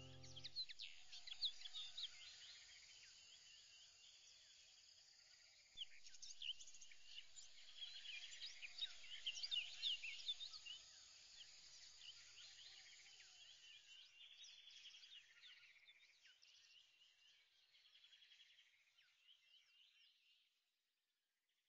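Faint chorus of many small birds chirping, dense and overlapping, thinning out and fading away near the end.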